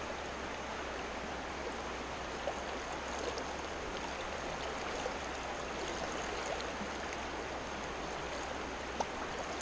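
Creek water flowing steadily, an even rush of current with no other sound standing out.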